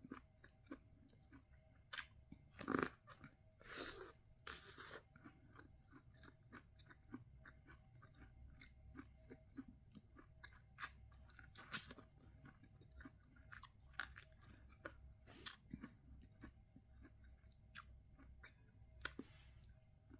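Sweet corn on the cob being bitten and chewed close to the microphone: quiet, wet chewing clicks and soft crunches. There is a handful of louder bites about three to five seconds in and again around eleven to twelve seconds.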